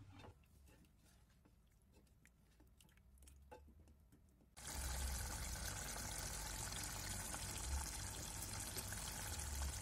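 Pumpkin tamarind curry simmering in a metal pot on the stove: a steady watery sound that starts abruptly about halfway through, after near silence with a few faint clicks.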